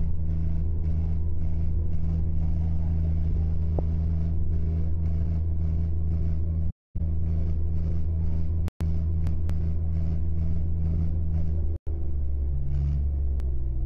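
Tractor diesel engines running hard under load in a tractor tug-of-war, a loud steady low drone whose pitch shifts near the end. The sound cuts out for a moment three times.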